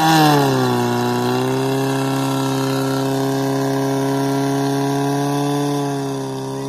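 Engine of a portable fire pump running at high, steady revs, driving water through the hoses. The pitch wavers briefly at the start, then holds steady, and the sound gets a little quieter about six seconds in.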